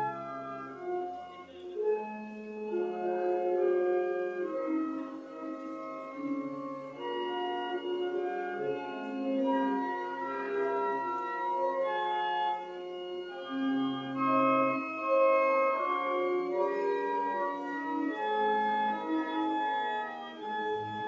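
Church pipe organ playing a slow piece of held chords, the notes changing every second or two.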